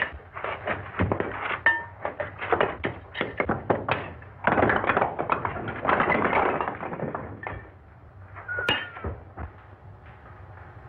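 Bricks being knocked loose and pulled out of a brick wall: a quick run of knocks and thuds, then a longer rattle of bricks tumbling down about four and a half seconds in.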